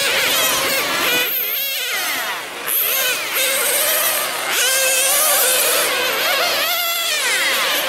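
Several nitro RC sedans' small two-stroke glow-fuel engines racing together, a high-pitched whine that repeatedly rises and falls in pitch as the engines rev up and back off. It is briefly quieter about two seconds in.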